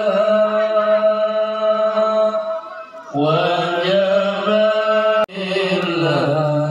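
Chanted singing with long held, slightly wavering notes over a steady low drone. It dips briefly near the middle and drops out for an instant about five seconds in before carrying on.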